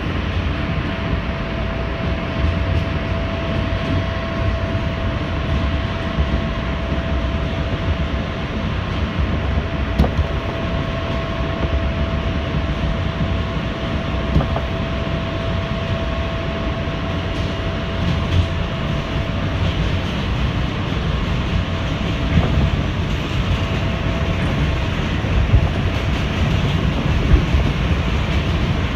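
An R160 subway train running at speed on elevated track, heard from inside the front car: a steady rumble of wheels on rail with occasional sharp clacks. A steady whine runs underneath and fades out about two-thirds of the way through.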